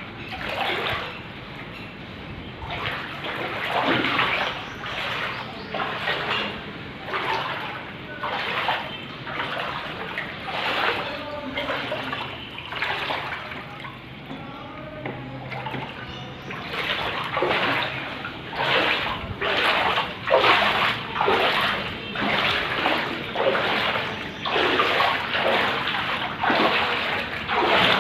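Floodwater rushing and splashing in uneven surges, louder in the second half.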